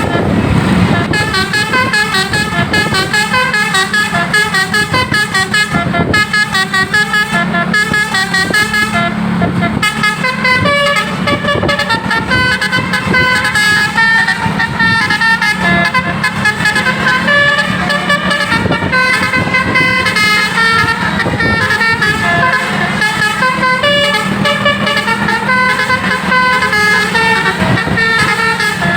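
Basuri 'telolet' multi-trumpet bus horn playing a fast tune, short notes stepping up and down without pause, over a steady low hum.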